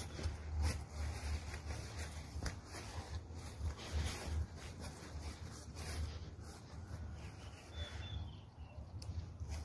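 Footsteps and rustling through tall grass, with wind rumbling on the phone's microphone; the steps and rustling thin out about six seconds in.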